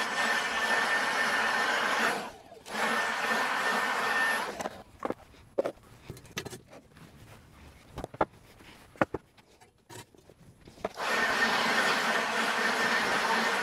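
A power lawn tool's motor running steadily at a constant high whine. It cuts out briefly about two seconds in and stops about four and a half seconds in, leaving scattered clicks and knocks, then runs steadily again from about eleven seconds.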